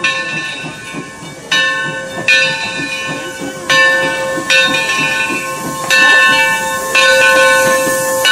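Steam locomotive's bell ringing, struck about once a second as the 1870s locomotive Torch Lake rolls into the station. Steam hisses more loudly near the end.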